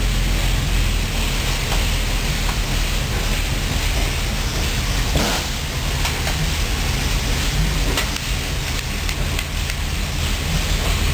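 Panther tank's Maybach V12 engine running steadily at low revs with a deep, even drone while the tank moves slowly.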